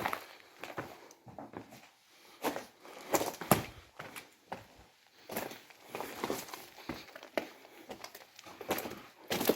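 Irregular crunching footsteps and scrapes on rocky ground, with knocks and rubbing close to the microphone. The sharpest knock comes about three and a half seconds in.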